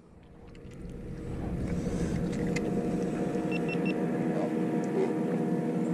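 A motor running steadily with a steady hum of several pitches, building up over the first couple of seconds. Three short, high electronic beeps come in quick succession about midway.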